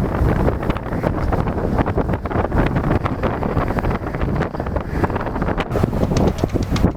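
Storm-force wind buffeting the camera's microphone: a heavy, ragged low rumble that swells and drops with the gusts.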